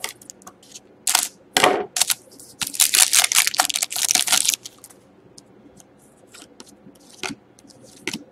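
Foil trading-card pack wrapper crinkling and tearing open, in short bursts and then a longer stretch of crackling about three to four seconds in. After that come faint light flicks as the cards inside are handled.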